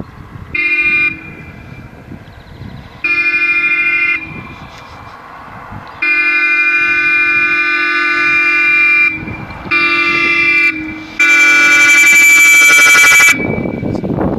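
Car horn sounding in five blasts: a short one, a second of about a second, a long one of about three seconds, another short one, then the loudest, about two seconds long with a brighter tone.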